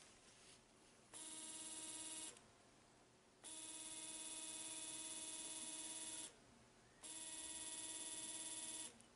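AC 220 V universal motor running on DC, switched on and off three times, its rotation reversed to counterclockwise. Each run is a steady whine with many overtones that starts and stops abruptly: about a second, then about three seconds, then about two seconds.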